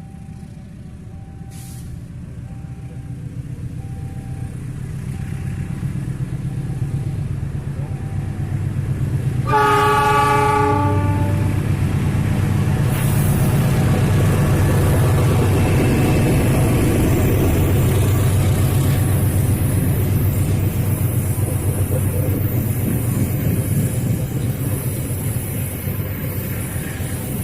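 A train approaches, growing steadily louder. About ten seconds in it sounds its horn in one blast of about two seconds. It then passes close by with loud engine and wheel noise.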